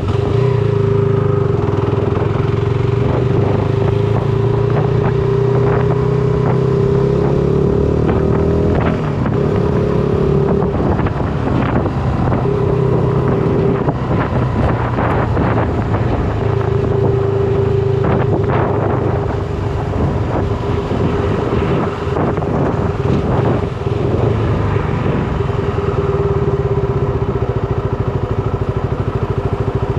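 Shineray SBM 250S motorcycle engine running steadily while riding. Its note drops out briefly a few times around the middle, with scattered light clatter.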